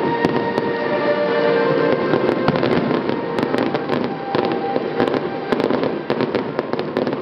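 Aerial fireworks going off in quick succession: many sharp bangs and a dense crackle, over music that is clearest in the first couple of seconds.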